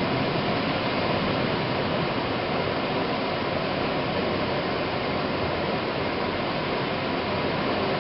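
Heavy rain and wind of a severe thunderstorm, a steady, even rush of noise.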